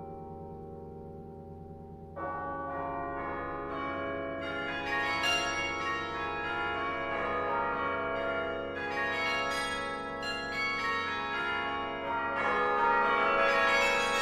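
Carillon bells ringing slow, struck chords: a chord dies away, a new one is struck about two seconds in, and further chords follow with the ringing overtones piling up, loudest near the end.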